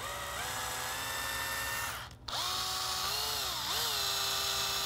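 Cordless drill with a 1/8-inch bit whining as it widens an undersized pin hole in a 3D-printed plastic part. It stops briefly about two seconds in, then runs again, its pitch dipping once as the bit bites.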